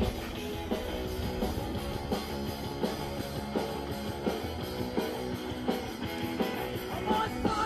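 Rock music with strummed guitar and a steady drum beat; a singing voice comes in near the end.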